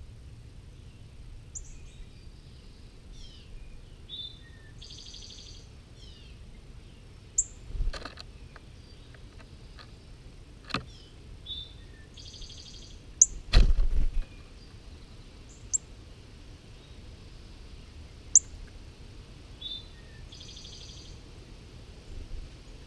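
Songbirds singing and calling: a song phrase ending in a buzzy trill repeats about every seven to eight seconds, with short high chips and down-slurred notes between. Several sharp knocks cut in, the loudest a heavy thump a little past halfway.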